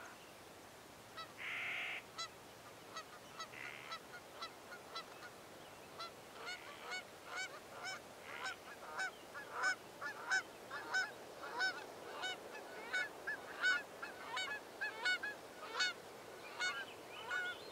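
Geese honking, a string of short calls that grows thicker and louder as it goes on. Two brief noisy bursts come in the first few seconds.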